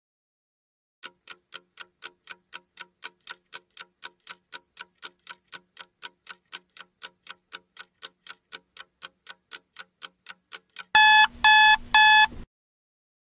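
Countdown-timer sound effect: a clock ticks evenly about four times a second for ten seconds, then three loud electronic alarm beeps sound as the timer reaches zero, signalling that time is up.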